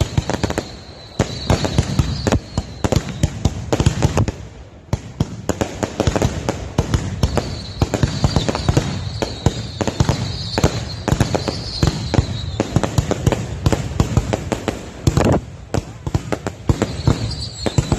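New Year's Eve aerial fireworks going off in rapid succession: a dense run of bangs and crackles, with short lulls about four seconds in and again near fifteen seconds.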